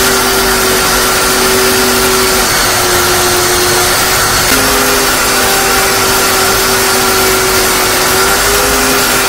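Electric power tool running steadily, a loud even hiss over a motor hum whose pitch steps slightly up and down a few times as the load changes.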